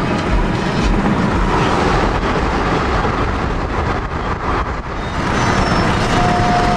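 A car on the move: steady road and engine noise.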